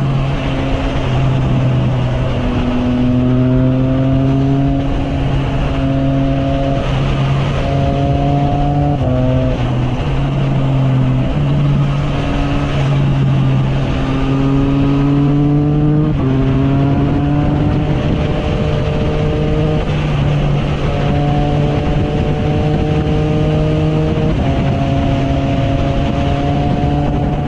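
Triumph Trident 660's inline three-cylinder engine through a Zard aftermarket exhaust, running at a steady cruise with small rises in pitch and a few sudden steps in the engine note, over wind and road noise.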